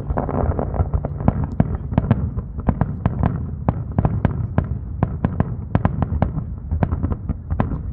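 Fireworks going off in a rapid string of sharp bangs and pops, several a second, over a low rumble.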